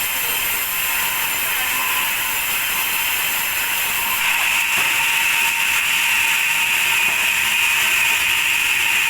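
Sawmill machinery running steadily, a dense high-pitched mechanical noise with no breaks.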